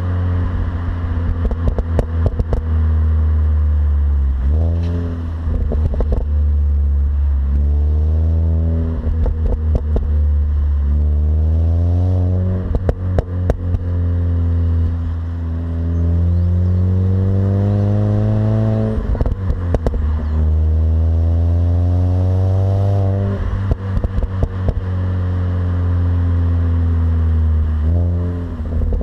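Mini Cooper S R53's supercharged 1.6-litre four-cylinder engine on its stock exhaust, accelerating repeatedly: the pitch climbs, then drops suddenly at each gear change, several times over. Frequent short clicks and rattles run alongside.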